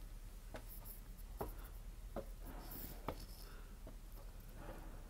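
Faint clicks and knocks, about six spread evenly, roughly one a second, over a low steady hum.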